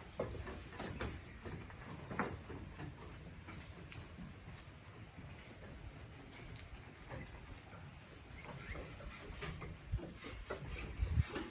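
Goats moving about, with scattered taps and knocks of hooves and a few louder knocks near the end.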